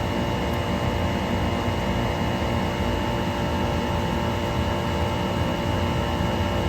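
Steady drone of machinery running in an air compressor room, motor noise with several steady whining tones held throughout.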